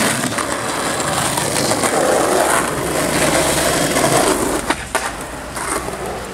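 Skateboard wheels rolling over rough, gritty ground, a continuous grinding rumble, with a few knocks from the board about five seconds in.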